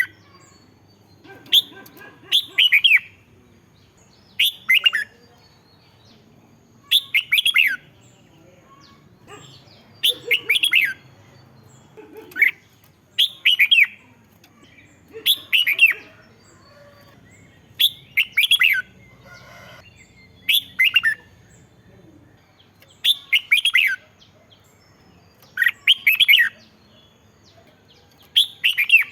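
Red-whiskered bulbul singing short, sweeping song phrases, one every two to three seconds.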